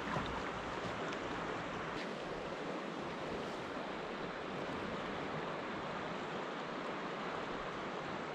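Steady rushing of a shallow river current flowing over a gravel bed.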